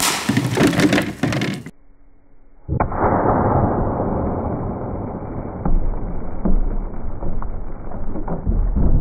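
A 700 Nitro Express cartridge going off outside a gun: a sharp crackling burst lasting under two seconds. About three seconds in, a slowed-down replay of the blast begins, a sudden dull boom that trails off into a long low rumble.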